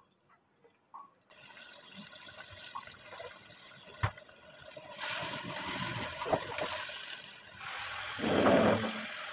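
Onion paste frying in hot oil in an aluminium kadhai: a steady sizzle that starts about a second in, grows louder about halfway through, and surges louder near the end.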